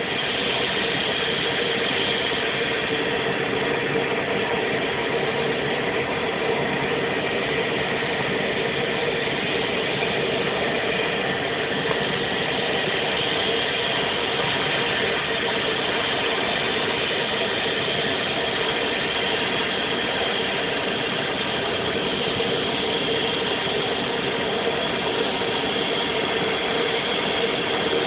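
T-34C Turbo Mentor's PT6A turboprop engine idling, a steady, even engine sound with a constant high turbine tone over it.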